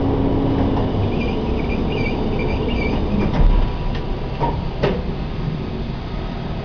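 Tower crane slewing, heard from inside the operator's cab: a steady low mechanical rumble, with faint squeaks about a second in and a few sharp clicks a little later.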